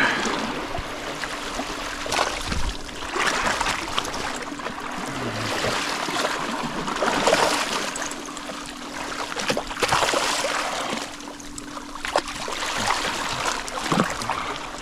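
Sea water sloshing and splashing close by, swelling into several splashing surges as a hooked fish is fought at the surface.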